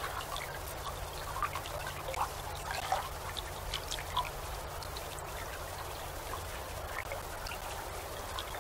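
Gentle waves lapping and gurgling, a continuous patter of small splashes and trickles, over a low steady hum.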